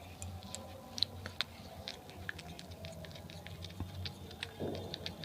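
Faint, scattered light clicks and rustles over a low steady hum.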